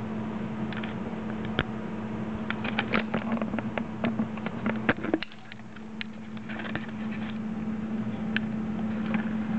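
A steady low hum with scattered small clicks and crackles, thickest in the first half; the hum drops away briefly a little after halfway.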